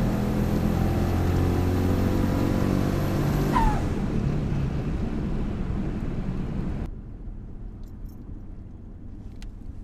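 Turbocharged pickup truck's engine at full throttle, heard from inside the cab, launching down a drag strip with its street tires spinning; the throttle is lifted about three and a half seconds in and the engine sound falls away. About seven seconds in it drops abruptly to a quieter, steady engine drone while cruising.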